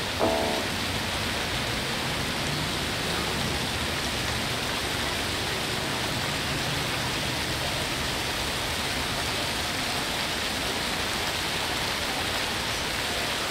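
A steady, even hiss, with a short burst of a few electric guitar notes in the first half-second.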